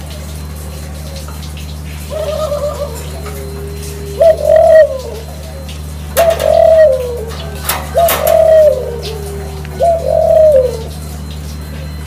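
Barbary doves (puter) cooing: a softer rolling call about two seconds in, then four loud coos about every two seconds, each rising and then falling in pitch. A couple of sharp clicks come near the middle, over a steady low hum.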